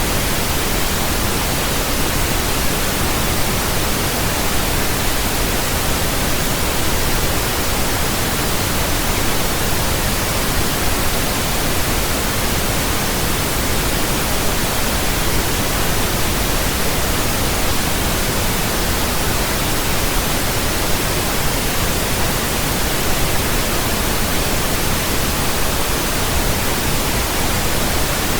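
Steady synthetic pink noise: an even, unchanging hiss with a deeper, fuller low end than white noise.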